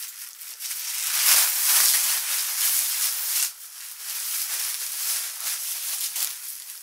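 Thin plastic trash bag crinkling and rustling as it is pulled over a bundle of clothes on hangers, loudest in the first half and dropping off sharply about halfway through before going on more softly.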